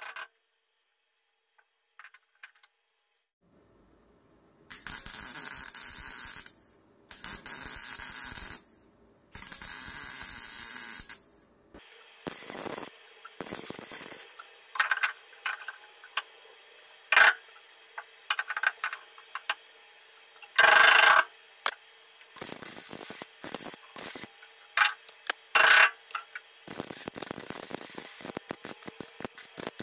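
MIG welder arcing on thin sheet steel, tack- and stitch-welding a patch panel into a rusted firewall. About five seconds in come three steady runs of crackling hiss, each a second or two long. After that comes a long string of short, irregular bursts as the welder pulses the trigger.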